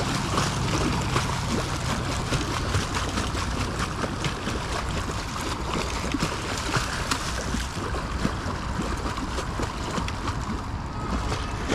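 Continuous splashing and gurgling of pond water as a small hooked alligator thrashes at the end of the line, fighting to get free.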